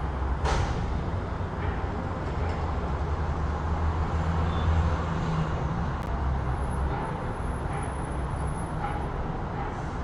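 City street traffic: a steady low rumble of vehicle engines, swelling in the middle as a heavy vehicle passes, with a short sharp hiss about half a second in.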